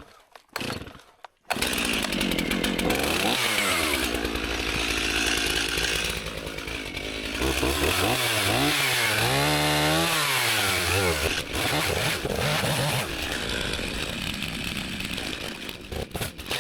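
Chainsaw running at full throttle, coming in suddenly about a second and a half in, as it cuts into a large hemlock trunk. Its pitch sags and recovers several times as the bar loads up in the cut.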